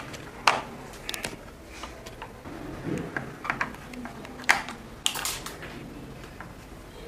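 Screwdriver fastening the screws of a red plastic three-phase industrial socket into its back box: a handful of sharp, separate clicks and taps of the steel tip and screws on hard plastic.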